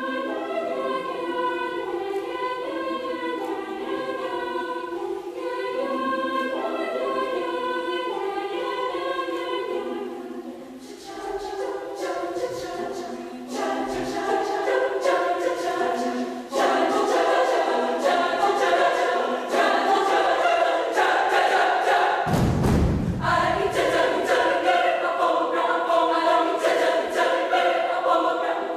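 Choir singing in multi-part harmony, a cappella. About a third of the way in, sharp percussive clicks join the voices and the singing grows louder, and a single low thud sounds about three quarters of the way through.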